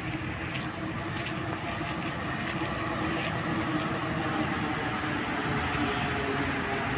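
Rubber-tyred Paris Métro Line 6 train running across the steel Bir-Hakeim viaduct, a steady noise with a faint hum that grows a little louder about three seconds in.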